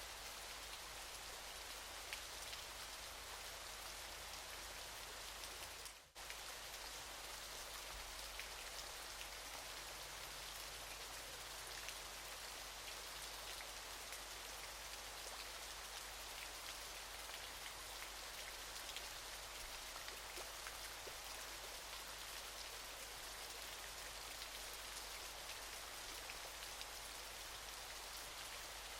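Falling water spattering in a steady, even hiss full of small drop-like ticks. It dips out briefly about six seconds in, then carries on unchanged.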